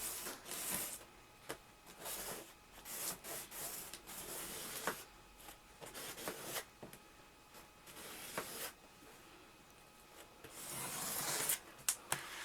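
Wallpaper being rubbed and pressed by hand: irregular soft scraping strokes with a few small clicks.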